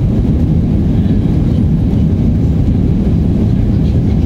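Steady low rumble of an Airbus A319 in its climb after takeoff, engines and rushing air heard inside the passenger cabin.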